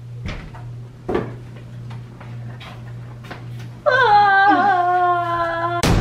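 A woman's voice holds one long, wavering note for about two seconds, over a low steady hum. Near the end a sudden loud hit starts music.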